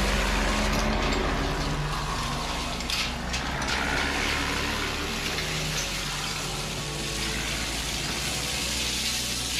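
Radio-controlled toy excavator's electric motors whirring steadily as it digs in sand, with a few brief scrapes about three seconds in.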